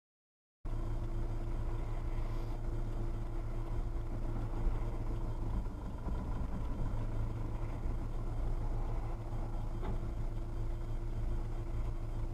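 Car engine and road noise heard from inside the cabin as a dashcam records it: a steady low hum that starts abruptly just under a second in, with a faint click near the end.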